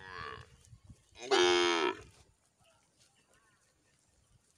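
Two moos from a grazing bovine: a shorter call right at the start, then a louder call about a second in that drops in pitch at its end.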